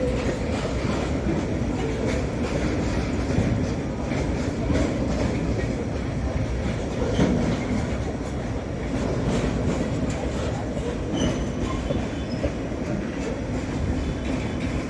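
Freight train of BCPTNL tank wagons rolling past, steel wheels rumbling and clacking over the rail joints in a steady run.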